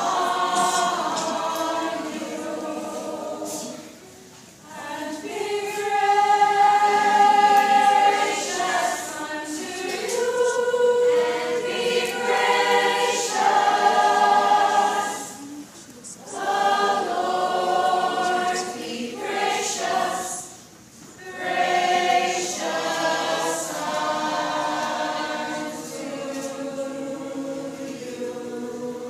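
Youth choir singing in harmony, holding long notes in phrases, with brief pauses between phrases.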